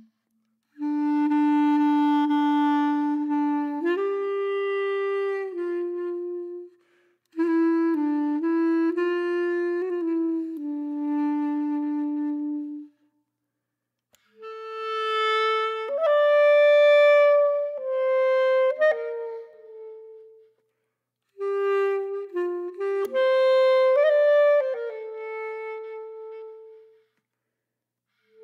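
Background music: a solo woodwind-like melody with no beat, played in four phrases of about six seconds, each followed by a short pause. The later phrases sit higher in pitch.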